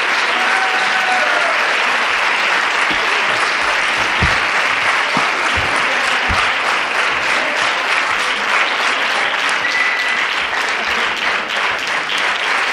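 Audience applauding steadily, a dense patter of many hands clapping, with a few voices calling out over it and some low thuds about four to six seconds in.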